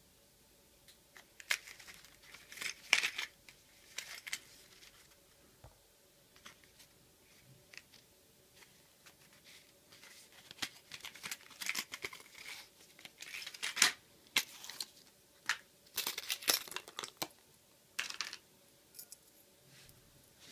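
Plastic blister packaging crinkling and tearing as it is opened by hand, in irregular crackling bursts: a short spell about two seconds in and a longer one from about ten seconds in.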